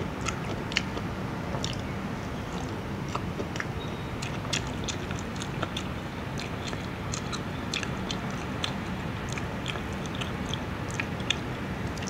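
Close-up chewing of fried chicken: many small, irregular wet mouth clicks and bites over a steady low background hum.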